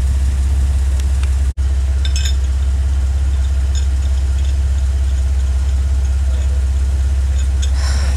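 Jeep engine running steadily at low revs as it crawls over rocks, with a few faint clinks. The sound cuts out for an instant about a second and a half in.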